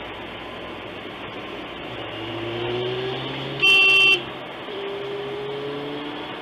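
Car engine and road noise inside the cabin, the engine pitch rising twice as the car speeds up, with a single car horn blast of about half a second a little past the middle, the loudest sound.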